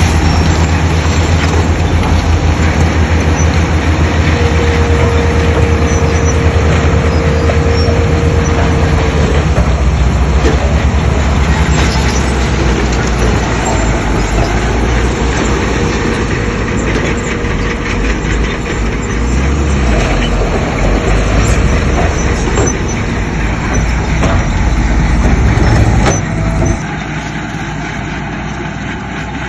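Heavy diesel earthmoving machinery working close by, a loud low engine drone with a steady high whine through the first nine seconds or so. The sound drops off abruptly about 26 seconds in.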